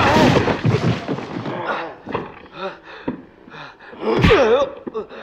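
Film fight sound: a crash as a body is thrown at the start, then shouts and cries from the fighters, with a loud, wavering yell about four seconds in.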